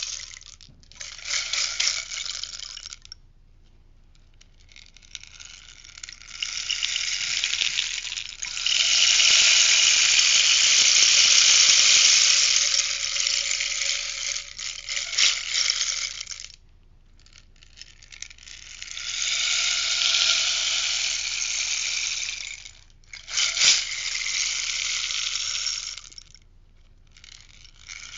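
Rainstick tipped over again and again, its pellets pattering down inside in about five pours separated by short pauses; the longest pour, in the middle, builds up and runs about ten seconds.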